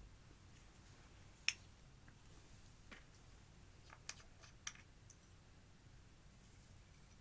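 A few soft, sticky clicks from clear slime being worked by hand with eyeshadow mixed in, the loudest about one and a half seconds in, with quiet between.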